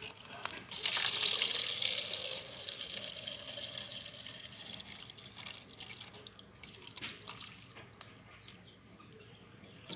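Water poured from a long metal spout splashing into a plastic cup buried in the soil, filling it. The splashing starts about a second in and dies away over the second half.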